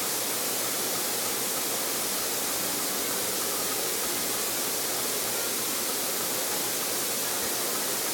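Steady, even hiss of background noise, unchanging throughout, with no distinct events.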